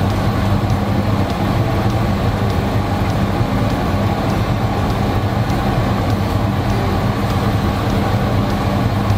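Steady low hum and rush over a lidded pan of chicken thighs simmering in garlic-soy sauce on a gas burner, with faint light ticks scattered through it.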